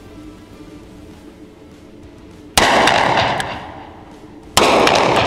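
Two shots from a Taurus .38 Special revolver, about two seconds apart, the first about two and a half seconds in and the second near the end. Each shot rings on with a long echo off the concrete of the indoor range.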